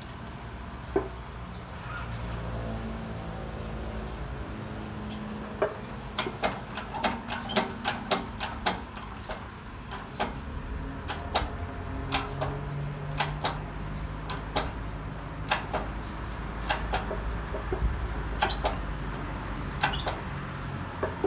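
Shop press pressing together a Honda Dash crankshaft: irregular sharp metallic clicks and ticks as the press is worked and the parts take the load, with a quick run of them about six to nine seconds in. A steady low rumble runs underneath.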